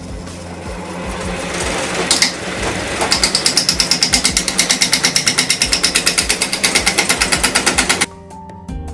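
A power tool cutting wood, building up and then settling into a fast even chatter of about nine beats a second that stops suddenly near the end, with background music underneath.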